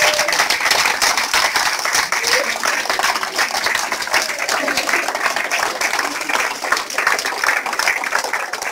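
Audience applauding steadily: a roomful of people clapping.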